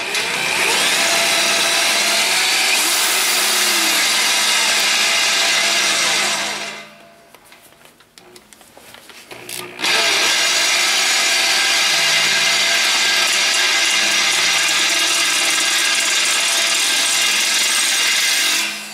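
Drill press running with its bit cutting into a metal plate, in two long runs: the first stops about six seconds in, and after a short pause the drill starts again near ten seconds and cuts until just before the end. The bit is a cheap, poor-quality one, pretty cheesy by the driller's own account.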